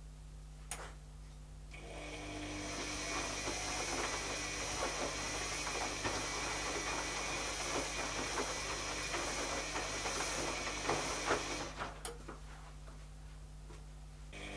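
Zanussi ZKN7120L washing machine turning its drum during a wash cycle: a steady swishing run with irregular light clatter, starting about two seconds in and stopping about two seconds before the end, with a single click just before it starts and just after it stops.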